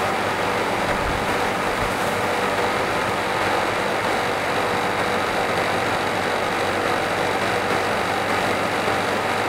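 Steady background noise with a faint high whine and no distinct events.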